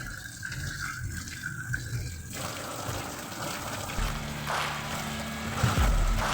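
Water running from a tap, growing stronger and fuller about two seconds in, with a few low knocks near the end.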